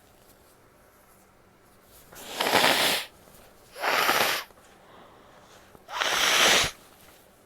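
A woman expelling air forcefully through her nose, three loud blasts each lasting just under a second: the first about two seconds in, the next two roughly a second and a half apart.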